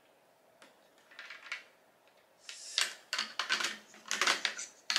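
Clicks and rattles of a ring-light stand's plastic and metal parts being handled and fitted together as the ball-head mount goes onto the stand, a few at first and then a busier run in the second half.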